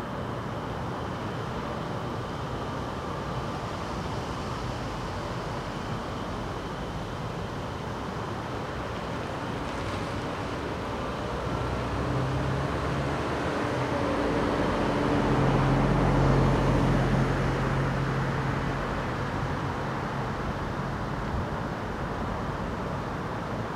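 Steady outdoor background hiss, with the engine of a passing vehicle swelling up about halfway through and fading away again.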